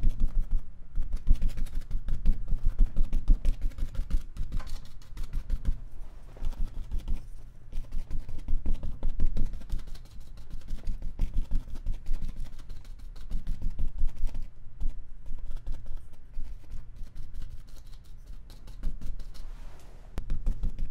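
Paintbrush dabbing and scrubbing acrylic paint onto a stretched canvas: runs of quick, light taps with short pauses between them.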